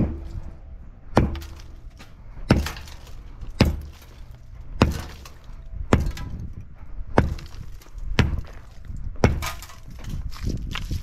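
Sledgehammer blows breaking up an old concrete footer. There are about nine hard strikes in a steady rhythm, a little over a second apart.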